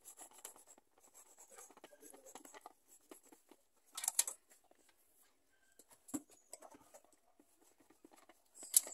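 Knife sawing through the crust of a chocolate sponge cake on a cake turntable: a quiet, scratchy rasping with a louder scrape about four seconds in and another near the end.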